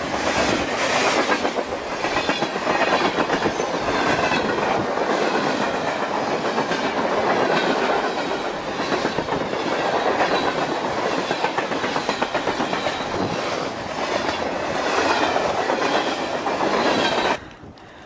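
Freight train of intermodal containers and tank cars rolling past close by: steel wheels clattering rapidly over the rail joints, with some high squeal of wheels on the rails. The sound cuts off sharply near the end.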